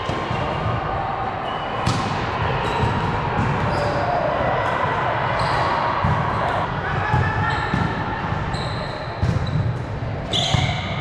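Volleyball play in a gym: the ball being struck and bouncing on the hard court, with short high squeaks and players calling out in the echoing hall. A sharp hit comes about two seconds in, and a louder burst of activity near the end.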